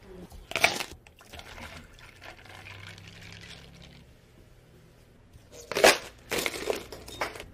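A sharp clatter about half a second in. Then, near the end, ice cubes clatter into a tall plastic cup in a few quick crunchy bursts.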